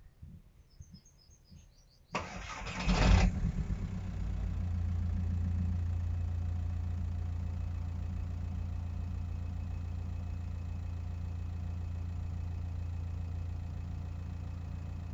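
Car engine cold-started: the starter cranks for about a second beginning two seconds in, the engine catches and flares, then settles into a steady idle.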